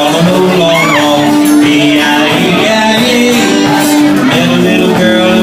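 Live band music with a voice singing over it, loud and steady, a tambourine-like jingle in the mix.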